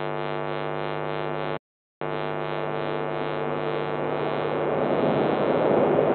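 A diesel locomotive's steady droning hum, with a rumble building from about four seconds in as the train draws closer. The sound cuts out completely for a moment just before two seconds in.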